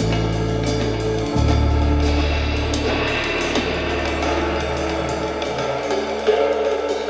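Background music with a drum kit, cymbals and a held bass line that changes note about a second in.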